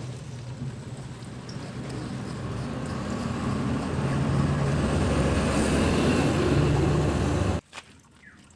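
A vehicle engine running, with a steady low hum that grows louder over several seconds, holds, then cuts off abruptly about seven and a half seconds in.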